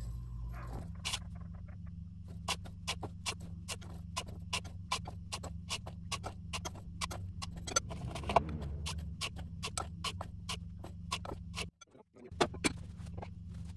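Silver crystal being spooned from a ceramic dish into a funnel: many small, sharp, irregular clinks and ticks of the metal grains and spoon, over a steady low hum. The clinking stops near the end.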